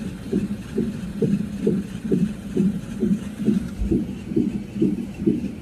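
Fetal heart monitor's Doppler speaker playing the baby's heartbeat as a steady, rhythmic whoosh-whoosh at about two beats a second, a normal fetal heart rate.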